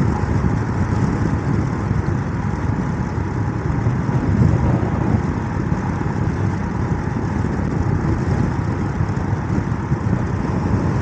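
Royal Enfield Himalayan 411's single-cylinder engine running steadily at just under 5,000 rpm at about 60 mph, under a loud, steady rush of wind and buffeting on the microphone.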